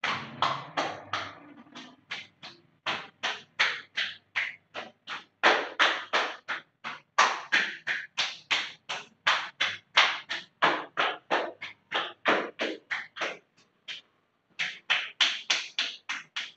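Open palms slapping bare skin on the chest, back and sides in a quick, steady run of pats, about three a second, with a short pause near the end: a self-tapping exercise meant to stir the circulation.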